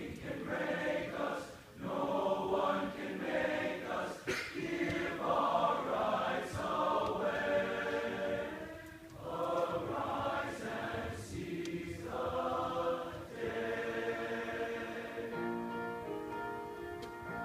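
Large men's choir singing in harmony, with brief breaks between phrases; near the end the voices settle into steadier held notes.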